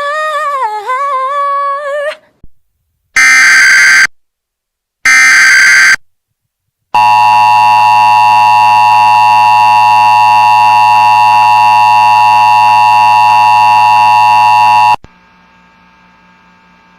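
Emergency Alert System broadcast tones: two loud one-second bursts of SAME header data about three and five seconds in, then the steady two-tone EAS attention signal for about eight seconds, cutting off suddenly and leaving a faint hum before the alert message.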